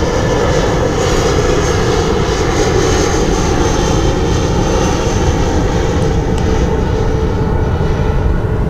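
Aircraft passing overhead: a steady engine rumble with a high whine that fades away near the end.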